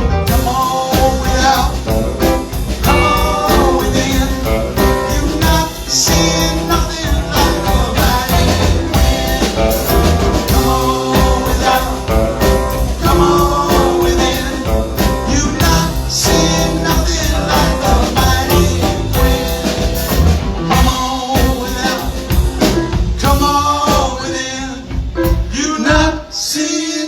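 A live band playing a blues-rock song through the PA, with drum kit and instruments carrying a break between vocal lines; it thins out near the end.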